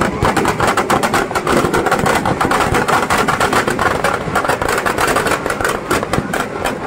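Firecrackers packed inside a burning Ravan effigy going off in a dense, rapid string of bangs and crackles.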